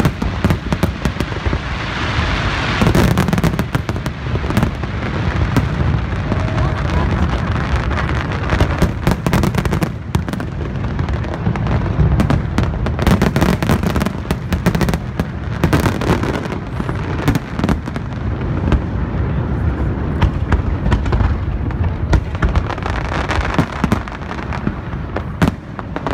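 Aerial fireworks bursting in quick succession, a dense, unbroken run of bangs and crackles.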